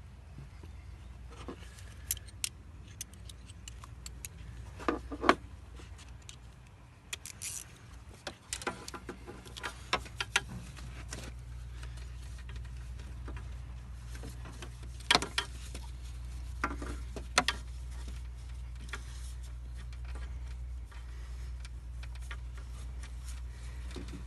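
Irregular metallic clicks and clinks of hand tools working on bolts and fittings, over a low steady hum.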